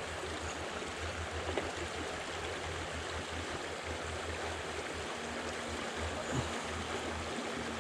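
Steady rush of river current flowing over a shallow riffle, with an uneven low rumble underneath.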